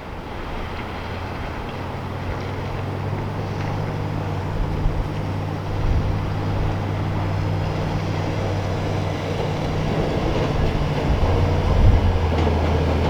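Vehicle engine running steadily under load while towing a trailer, with road and wind noise, growing gradually louder.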